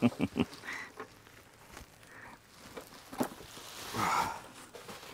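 A man's short chuckle, then soft rustling and crinkling of bubble wrap and a plastic bag as a computer is unwrapped, swelling about four seconds in.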